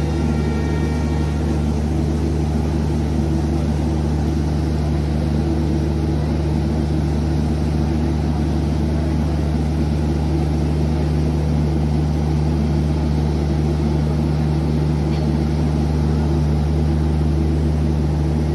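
Diesel engine of a standing passenger train running at a steady idle: a deep, even hum that keeps the same pitch.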